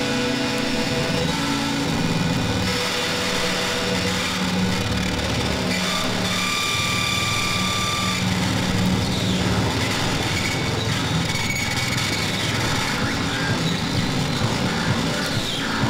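A noisy, engine-like passage of recorded music from a flexi-disc: a dense, steady drone with a few held high tones about six to eight seconds in.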